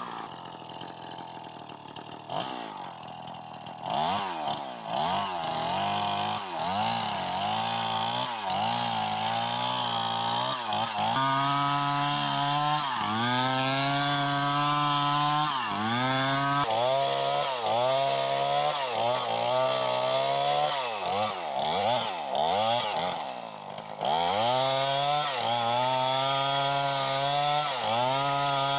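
Two-stroke chainsaw running, quietly at first, then revved up and down over and over, with spells held at a steady high speed in between.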